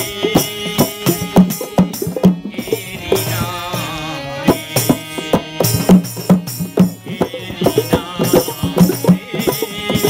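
Live local Bengali village music: hand drums beating a fast, busy rhythm under singing voices, with sharp metallic strikes in time with the beat.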